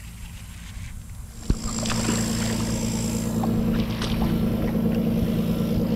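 A kayak's small motor switches on with a click about a second and a half in, then runs with a steady low hum, with water rushing past the hull as the kayak moves off.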